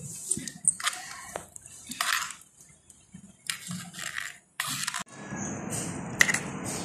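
A small metal spoon stirring boiling syrup in a miniature clay pot, scraping and clinking irregularly against the pot. A steady hiss comes in about five seconds in.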